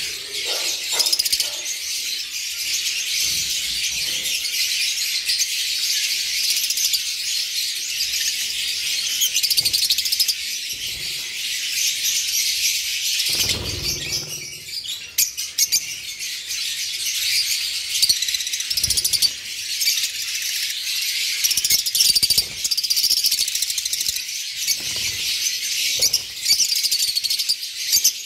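A cage full of lovebirds chattering: a dense, continuous mass of shrill chirps and squeaks, with a short flutter of wings about halfway through.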